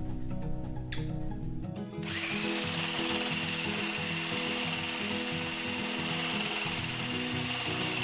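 Handheld electric mixer with a whisk attachment switches on about two seconds in and runs steadily with a high whine, beating cake batter in a glass bowl.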